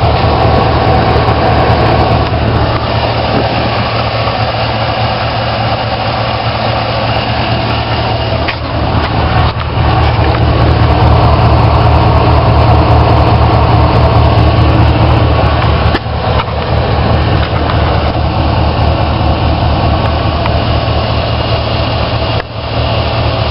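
Chevy 6.0L Vortec V8 running steadily through a Flowmaster exhaust, with a slight dip in level now and then. Its piston slap has become only a faint noise after a SeaFoam treatment.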